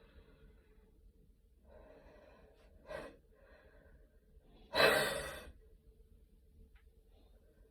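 A woman breathing hard between coughs after a gym workout, with a small cough about three seconds in and one loud cough about five seconds in.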